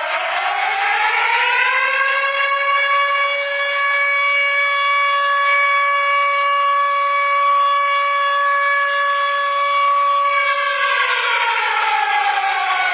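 Civil defense siren sounding for the 10 November moment of remembrance. Its pitch rises over the first two seconds, holds one steady tone for about eight seconds, then begins to fall away near the end.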